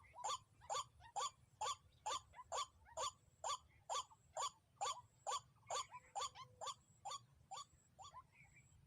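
White-breasted waterhen (dahuk) calling: a steady series of short, identical notes, about two a second, which break off near the end.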